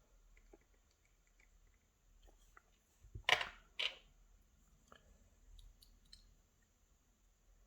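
Faint small metallic clicks of lock pins and springs being handled with tools, with two louder short clicks a little over three seconds in, about half a second apart.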